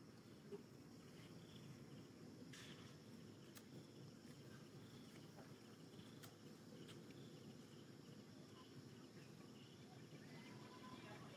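Near silence: faint outdoor background with faint high insect chirping and a few soft clicks.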